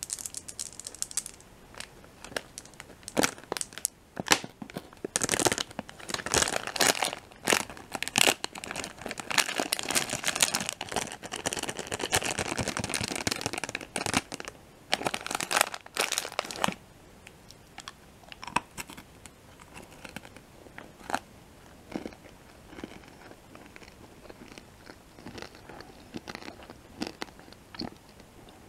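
A plastic M&M's candy bag crinkling and crackling as it is handled close to the microphone, dense for about the first sixteen seconds. After that come sparse soft clicks of mouth and chewing sounds.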